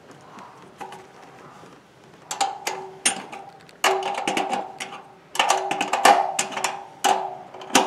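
A 13 mm ratchet spanner clicking in quick runs as the nuts on a steel satellite-dish mounting bracket are tightened, the metal ringing briefly after each run. Four runs of clicks, starting about two seconds in.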